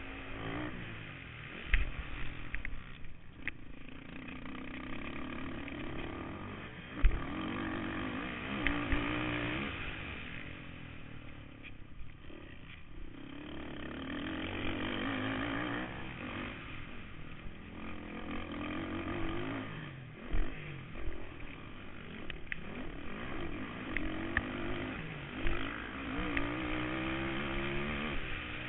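Kawasaki KFX 450R quad's single-cylinder four-stroke engine racing hard, heard from on board: the revs climb again and again and drop back between climbs. Several sharp knocks break in as it hits the rough track.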